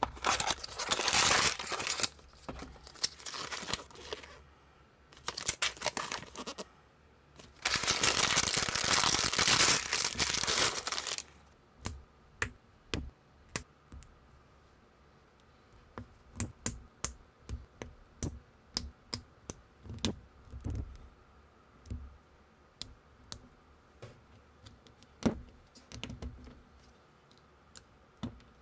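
Cardboard toy box being opened and its packaging torn and crinkled in several rustling spells for the first ten seconds or so. Then small plastic building bricks and minifigure parts clicking and snapping together, many separate sharp clicks.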